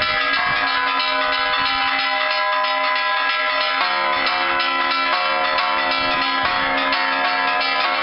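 Church bells rung by hand in quick, repeated strokes, several bells sounding together in a dense, continuous peal. A lower-pitched bell joins in about halfway through.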